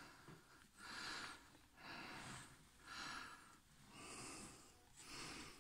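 Faint breathing close to the microphone: a soft hiss in and out about once a second.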